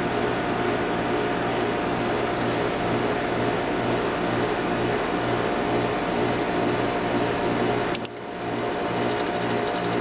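Trane XL14 heat pump outdoor unit running, its compressor and two-speed condenser fan making a steady low hum that pulses evenly, while the fan is switched to low speed by shorting the defrost board's low-fan test pin to test common. A sharp click about eight seconds in.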